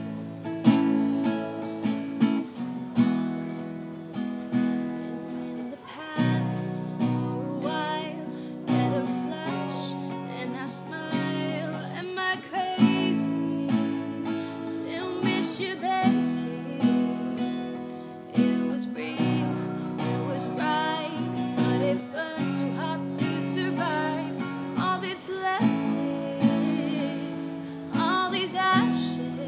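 A woman singing to her own strummed acoustic guitar. The chords are strummed steadily and the sung notes waver with vibrato.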